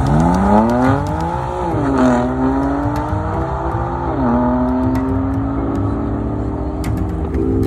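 A petrol car engine accelerating hard from a standing launch, its revs climbing and then dropping sharply at two upshifts, about two and four seconds in.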